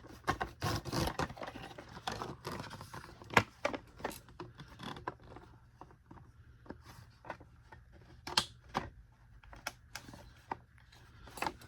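Plastic parts of a Bissell CleanView upright vacuum being handled and fitted together: scattered clicks, knocks and light rattles, with sharper knocks about three seconds in and again near eight seconds.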